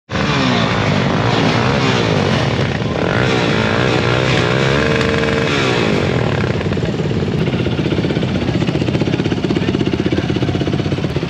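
Several sport quad ATV engines running together, warming up. Over the first six seconds their pitches rise and fall as throttles are blipped, then they settle into a steady, fast, lumpy idle.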